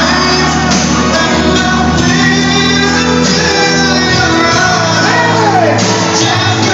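Loud music with singing and shouted voices.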